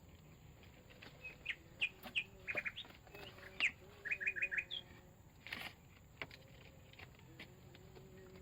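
A bird calling: a series of short high chirps, including a quick run of four notes about halfway through. A few sharp knocks are mixed in, the loudest about two-thirds of the way through.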